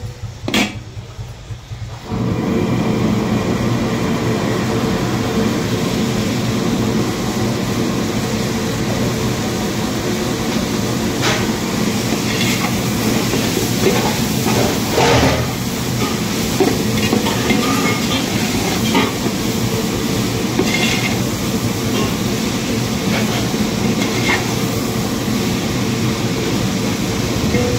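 Metal spatula stirring chopped vegetables in a large metal pot, with scattered scrapes and clinks against the pot's side. Under it is a loud, steady rumbling hum that comes on about two seconds in.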